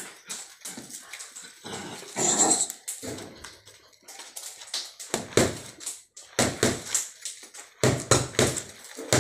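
A dog barks about two seconds in. Through the second half, boxing gloves smack against focus mitts in quick strings of punches.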